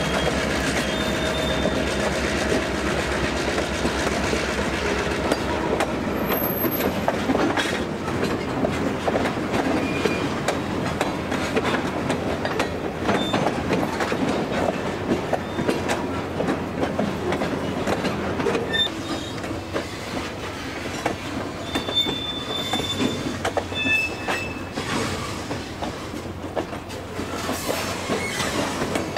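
An EMD diesel locomotive passes with its engine running for the first few seconds, then a string of freight cars rolls by, wheels clicking and knocking over the track, with a few short high wheel squeals in the second half.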